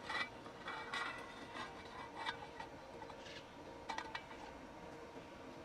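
Scattered light metallic clinks and taps, a handful of short ringing knocks over a faint steady hum.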